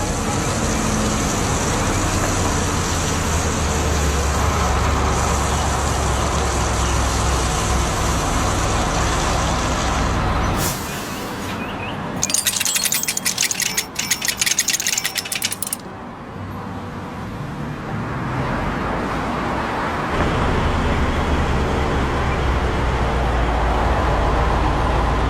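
Cartoon vehicle engine sound effect running steadily, broken in the middle by a few seconds of rapid metallic clicking, then the engine sound returns.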